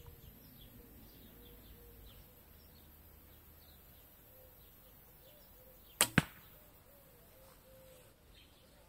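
A shot from a 73-lb takedown recurve bow with molded limbs and a G10 riser: the string snaps forward on release about six seconds in, and a fifth of a second later comes a sharp smack as the arrow strikes a dense target of tightly woven carpet layered with high-density foam. Faint birdsong underneath.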